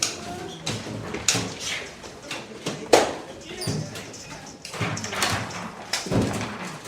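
Hospital emergency room ambience: irregular knocks, clatter and rustling with indistinct voices, and a sharp knock about three seconds in.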